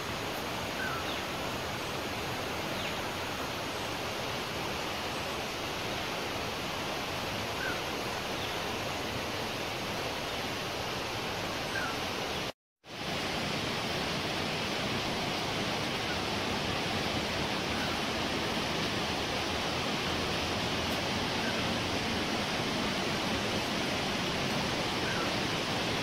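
Steady rushing of running water, such as a rain-forest stream or waterfall, with a few faint short chirps over it. The sound cuts out for a split second about halfway through, then goes on.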